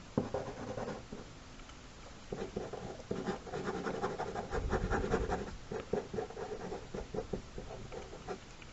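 Pen scratching on paper in quick, irregular strokes while inking a sketch, busiest in the middle.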